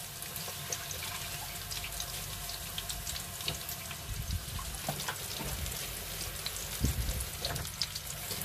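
Food frying in oil in a pan: a light, steady sizzle with scattered crackles, and a few low knocks of handling about halfway through.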